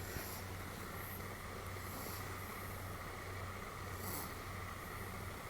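Sleeping Pomeranian breathing with faint, airy snoring breaths every second or two over a steady background hum.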